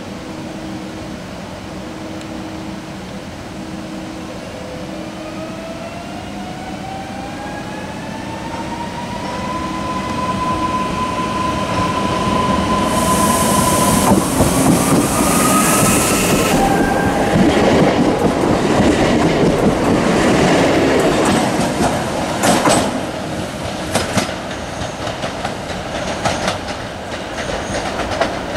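Newag Impuls electric multiple unit pulling away and accelerating. Its traction drive whines in tones that climb in pitch in steps as it gathers speed, and it grows louder as it comes closer. Near the end the wheels click and knock over rail joints and points.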